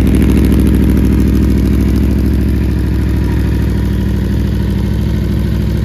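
Aprilia Tuono V4 1100's V4 engine idling steadily through an aftermarket Mivv carbon exhaust.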